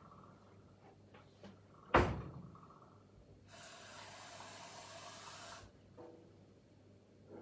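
A kitchen cupboard door shuts with a sharp knock about two seconds in. Then the sink tap runs into a glass for about two seconds, a steady hiss that stops abruptly, followed by a few light clicks.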